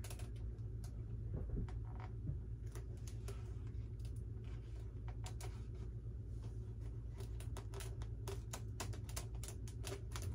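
Irregular small clicks and taps of the foam RC Tiger Moth's tail-wheel assembly and tail pieces being wiggled and pushed into place, over a steady low hum.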